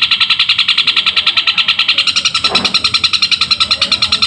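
Long-tailed shrike (cendet) singing a rapid, evenly repeated chatter of high notes, about nine a second, in its continuous fighting song, mimicking Eurasian tree sparrow chirps.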